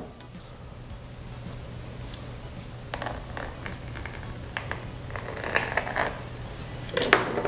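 Kitchen knife cutting and scraping through rolled ginger bulla dough against a floured board: faint, irregular scrapes and light clicks over a steady low hum, with a sharper tap near the end.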